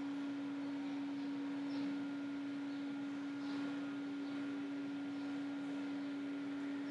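A steady hum at one low pitch, unchanging throughout, over a faint even hiss.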